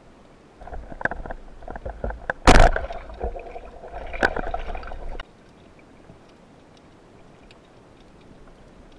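Band-powered speargun fired underwater: one loud, sharp snap about two and a half seconds in, among lighter knocks and clicks of the gun and the shaft. The sound cuts off suddenly a little after five seconds, leaving a faint steady underwater hiss.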